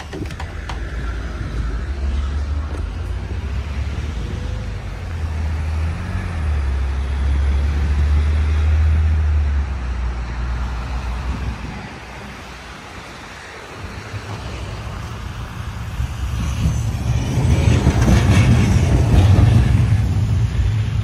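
Street traffic noise with wind buffeting the microphone in low rumbling gusts. It dips for a moment past the middle and grows loudest near the end, as a tram moves close by.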